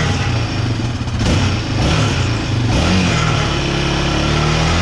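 2019 Yamaha Raptor 700's single-cylinder four-stroke engine blipped a few times, the pitch rising and falling with each blip, then settling to a steady idle about three seconds in. A light rattle comes with it, which the owners place inside the muffler.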